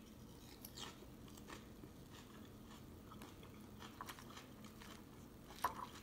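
A person chewing a mouthful of falafel salad, with faint scattered crunches and a sharper click near the end.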